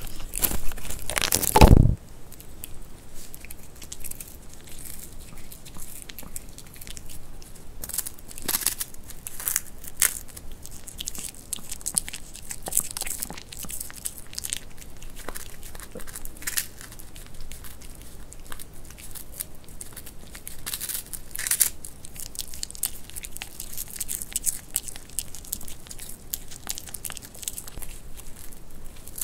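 Pomeranian biting and chewing crisp freeze-dried vegetable chips, including cabbage, with irregular sharp crunches and crinkling. A louder thump comes about a second and a half in.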